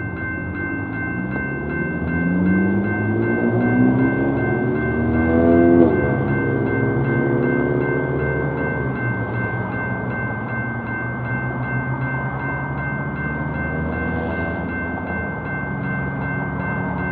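GS Type 2 electronic crossing bell ringing steadily in an even, repeating rhythm. Over it, an engine climbs in pitch and then drops sharply as it passes about six seconds in, with a fainter pass later.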